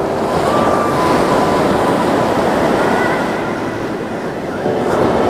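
Ocean surf washing steadily onto the beach, a dense rush of breaking waves.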